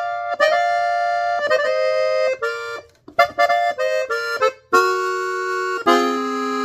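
Hohner three-row diatonic button accordion in F, playing a short melodic phrase in B-flat on the treble buttons: quick runs of notes with a brief break about three seconds in, then fuller held chords in the second half.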